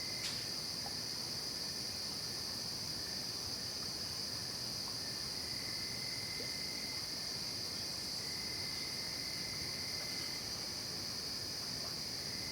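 Night insect chorus of crickets: a steady, unbroken high-pitched trilling, with a lower-pitched trill that starts and stops a few times.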